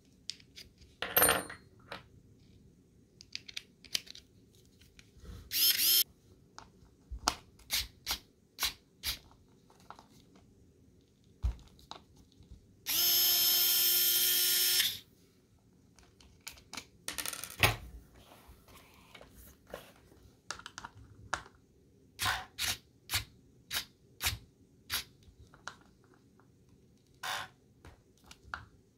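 JXTZ cordless electric screwdriver with a nut-driver bit running steadily for about two seconds near the middle, spinning a wheel nut on an R/C buggy. Around it come many light clicks and taps, with a few louder clacks, from bits and parts being handled.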